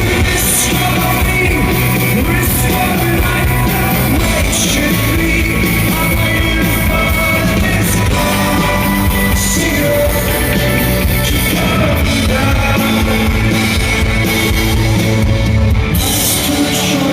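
Rock band playing live, with a lead singer over the full band, picked up loud from among the arena audience.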